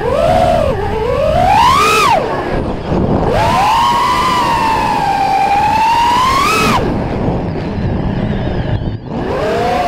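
FPV drone's electric motors and propellers whining, the pitch sliding up and down with the throttle, over a constant rush of air on the onboard microphone. The whine climbs and cuts out about two seconds in, comes back about a second later and holds steady, drops away near seven seconds, and returns just before the end.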